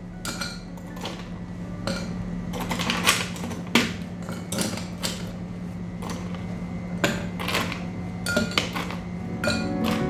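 Ice cubes clinking against tall drinking glasses as they are put in by hand to fill the glasses, an irregular series of sharp clinks, with a steady low hum underneath.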